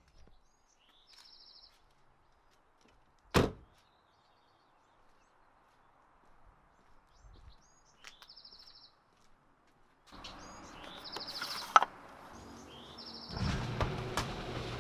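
A bird singing the same short phrase about four times, a rising note followed by a quick trill, with one loud sharp thump about three and a half seconds in. From about ten seconds on a rushing noise builds up, with a low hum joining near the end.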